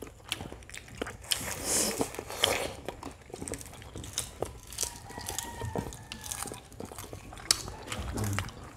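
Shells of boiled balut duck eggs being cracked and picked off by fingers: an irregular run of sharp little clicks and crunches.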